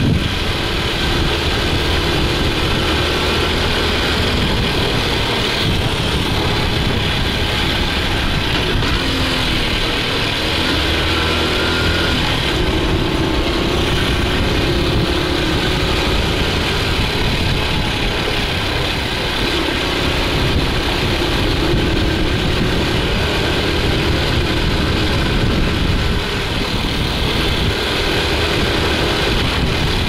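Honda Super Cub C50's small 49 cc four-stroke single-cylinder engine running under way, its pitch rising and falling several times as the throttle is opened and eased off.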